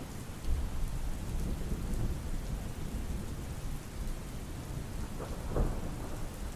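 Steady rain with a deep rumble of thunder that swells up about half a second in and rolls on.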